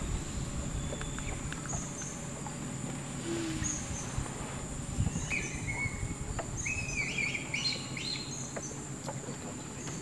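Tropical riverside forest ambience: a steady high insect drone with birds calling over it, the calls growing busier about halfway through. A faint low rumble lies underneath.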